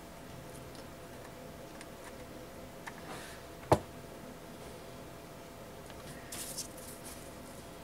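Light handling sounds of ribbon pieces and a hot glue gun on a tabletop, with one sharp knock a little before the middle and a short rustle near the end, over a faint steady hum.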